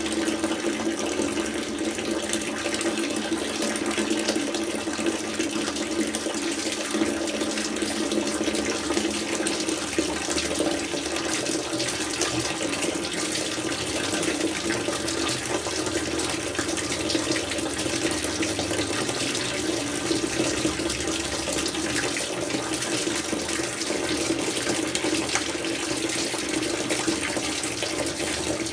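Steady stream of tap water pouring and splashing into a container, running without a break.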